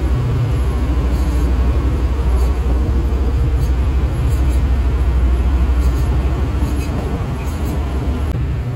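Sumitomo HA45W asphalt finisher's diesel engine running steadily during paving, a deep continuous rumble.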